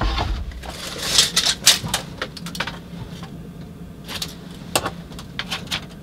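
Wooden boards being handled: a low thump at the start, then scattered light knocks and clicks, over a faint steady hum.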